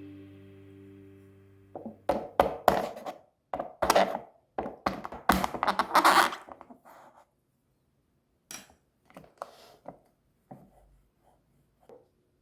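Background music fading out, then a run of sharp knocks and clatters, as of containers and utensils being handled on a table. They come thick for about five seconds, then only now and then.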